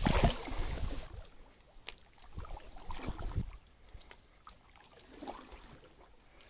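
Small folding plywood boat being worked through reeds in shallow water: a rush of rustling and splashing for about the first second, then faint scattered knocks, drips and rustles.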